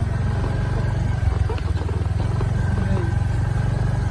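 Vehicle engine running with a steady low rumble.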